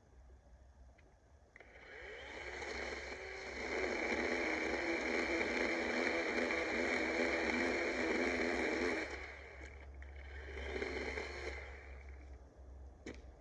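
DeWalt 20V battery chainsaw running: its electric motor and chain whine up and run steadily for about seven seconds. It stops, then runs again briefly, and a sharp click follows near the end.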